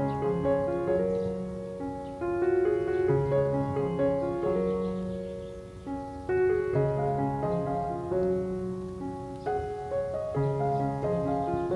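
Soft, slow piano music: gentle phrases of held notes.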